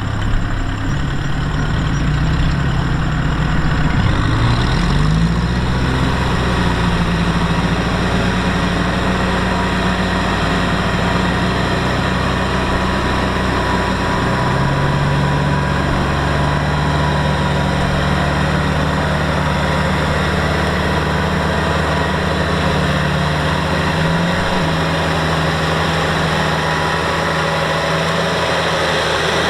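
Diesel engine of heavy farm machinery running steadily, its speed rising about five seconds in and again about halfway through.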